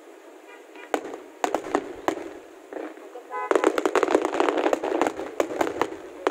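Fireworks going off: a few separate bangs, then from about three and a half seconds in a dense, rapid crackling of many small bursts.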